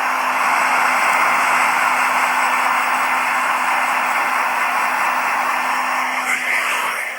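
Hair dryer blowing steadily, a loud even rush of air with a faint motor hum beneath it. A brief higher sound comes just over six seconds in, and the rush drops in level right at the end.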